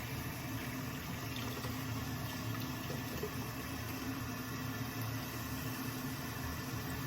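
Hot tap water running steadily, with an even rushing hiss.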